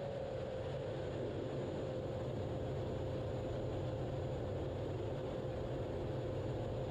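Steady cockpit noise of a Blue Angels jet in a hard banking turn: an even rush of engine and airflow with a low rumble and a constant whine running through it.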